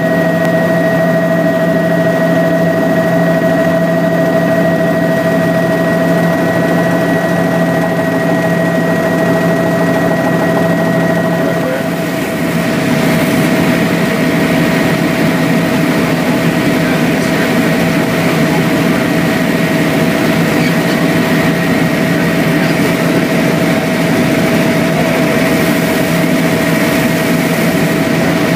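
Helicopter cabin noise in flight: a steady whine of several held engine tones over the noise of the rotor and airflow. The hiss grows stronger about twelve seconds in.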